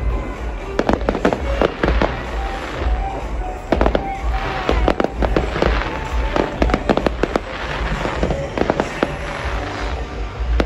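Fireworks display: aerial shells and rockets going off in irregular clusters of sharp bangs over continuous crackling.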